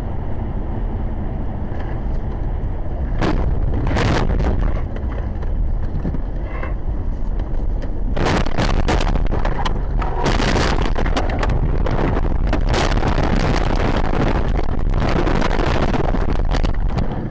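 Car cabin with steady road noise on a snowy highway. A couple of sharp knocks come about three and four seconds in, then from about eight seconds a long run of bangs, scraping and crunching as the car leaves the road and tumbles into snow and brush.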